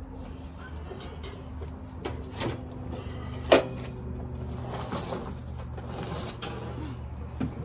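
Scattered knocks and clunks of equipment being shifted about, with one sharp bang about three and a half seconds in, over a steady low hum.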